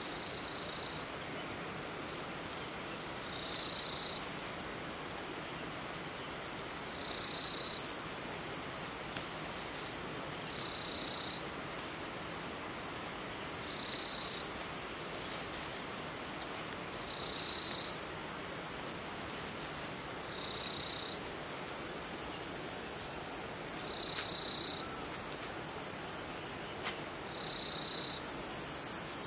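Insects singing in one steady, high-pitched drone that dips lower and swells louder about every three and a half seconds.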